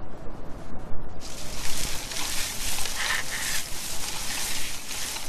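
Black crested gibbons calling: a series of short calls that starts about a second in, over a steady high hiss.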